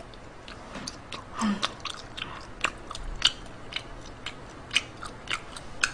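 A person chewing a mouthful of food close to the microphone, with wet mouth clicks about twice a second.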